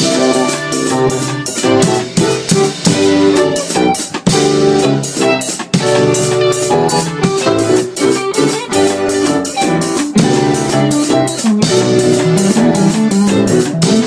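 A small band playing live: a Stratocaster-style electric guitar and an electronic keyboard over a drum kit keeping a steady beat.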